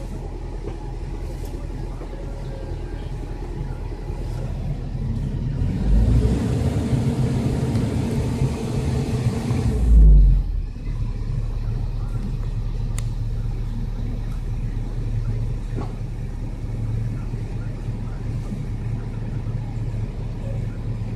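Volvo EC210 excavator's diesel engine running steadily as the machine travels, heard from the cab. From about six seconds in the engine gets louder and fuller, with a low thump as it starts, then it drops back with a heavier thump about ten seconds in.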